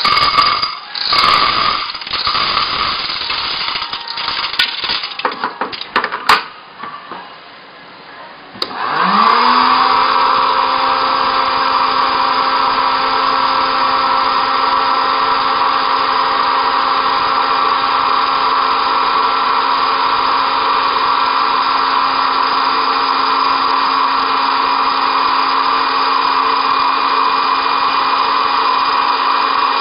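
Corn kernels rattling and plastic parts clicking as kernels are loaded into a small electric hot air popcorn maker. About nine seconds in the machine is switched on: its fan motor spins up with a quick rising whine, then runs steadily, blowing hot air through the popping chamber.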